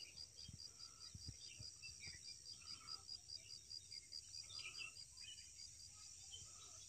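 Faint insect chirping, a steady high-pitched pulse of about five chirps a second.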